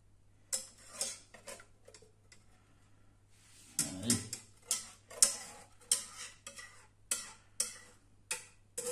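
Wire whisk knocking and scraping against the inside of a saucepan while the last of a thickened chocolate custard is cleared out of it. The knocks are irregular: a few at first, then a quicker run from about four seconds in.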